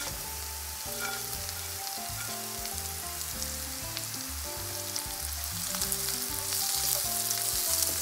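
Okra and chopped onions sizzling in hot oil in a frying pan, with a wooden spoon stirring and scraping through them; the sizzle grows louder toward the end.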